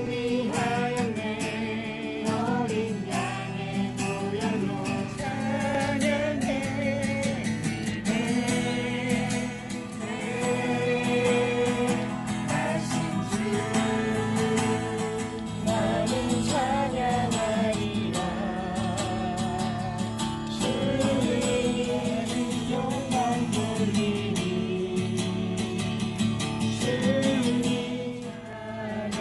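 A Korean Christian worship song sung by several voices over an instrumental accompaniment, the melody going on without a break.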